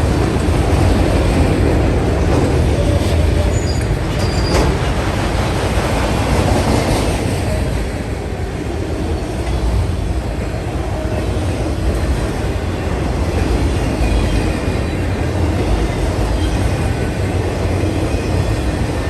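A train's cars rolling past, a steady loud rumble of steel wheels on rail, with a faint, brief high squeal about three to four seconds in.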